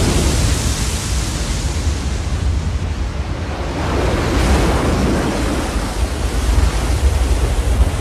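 Film sound effects of the sea parting: rushing, churning water and storm wind over a deep low rumble, swelling about halfway through.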